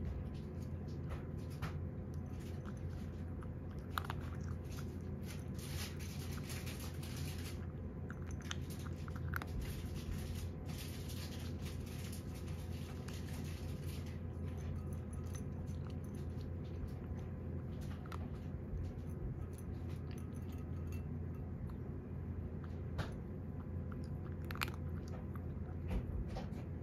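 A cat crunching dry kibble from its bowl, a quick run of crisp crunches, busiest through the first half and sparser later. A steady low hum sits underneath.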